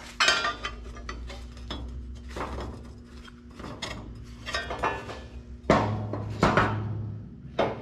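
Steel welding square clinking and scraping against a sheet-steel box form and a steel welding table as it is fitted into the form and then set down: several separate sharp metallic knocks.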